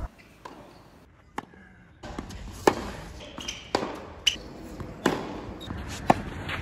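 Tennis rally: a string of sharp pops as rackets strike the ball and the ball bounces on the court, about eight in all, the loudest three in the second half, over faint court and crowd ambience.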